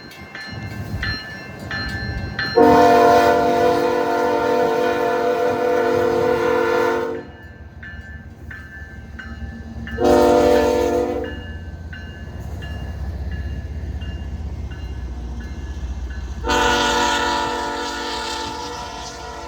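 A diesel freight locomotive's air horn sounds a long blast, a short one and another long one, a multi-note chord each time. A low rumble from the approaching locomotive and train lies underneath, and a bell rings about twice a second between the blasts.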